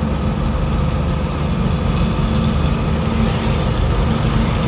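Container lorry's diesel engine running steadily on the highway, heard from inside the cab, with a low hum and road noise.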